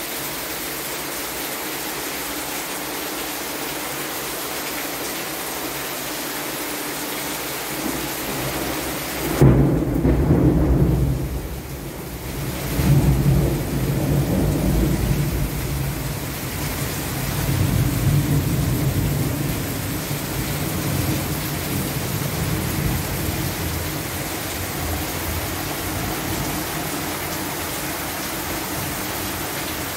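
Steady rain hiss, then about nine seconds in a sudden clap of thunder that rumbles on in rolling waves for about ten seconds before fading back under the rain.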